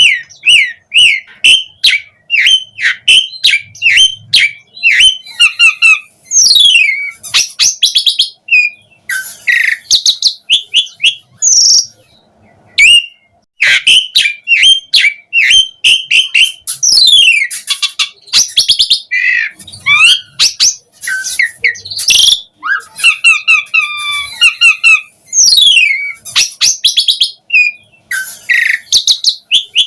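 Asian pied starling singing a long, varied song full of mimicked phrases. It runs fast strings of repeated chirps, whistled notes sliding up and down, and clicky chatter, with a brief pause about halfway through.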